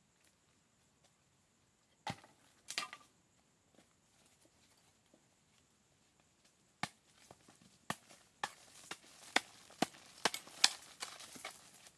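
Blade chopping wood: a couple of sharp knocks about two seconds in, then from about eight seconds a quick run of chopping strikes, several a second.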